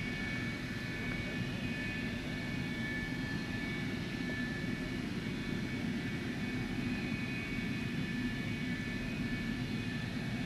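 F-104 Starfighter jets with J79 turbojet engines running on the ground, a steady jet whine with two high tones over a low rumble.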